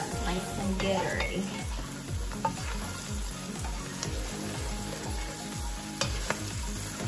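Fried shrimp sizzling in a stainless steel pot as they are stirred and tossed with a nylon spatula. A few sharp clicks and scrapes come where the spatula strikes the pot.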